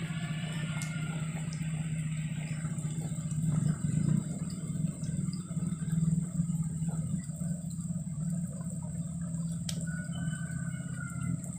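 Motorcycle engine idling steadily, a low even hum that swells a little about four and six seconds in.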